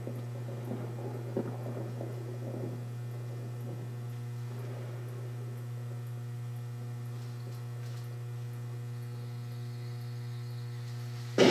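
Steady low hum with a few fainter steady overtones above it. It is broken only at the very end by a sudden loud bang.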